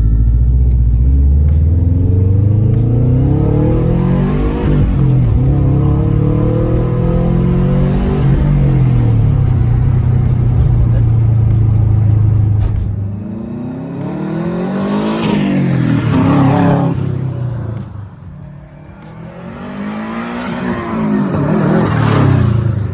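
Turbocharged car engine accelerating hard, its pitch climbing and falling several times as it revs up and eases off. The blow-off valve is blocked off, so boost is sent back through the turbo at each lift-off, which gives a compressor-surge flutter.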